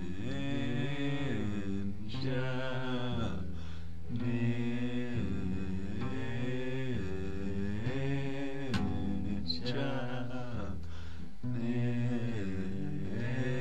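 Background music of slow, chant-like singing, its phrases sliding up and down in pitch over a steady low drone.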